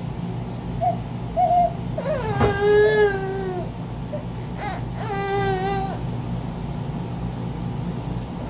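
Teething baby fussing: short squeaks, then two drawn-out crying wails about two and five seconds in. A steady low hum of a running air conditioner lies underneath.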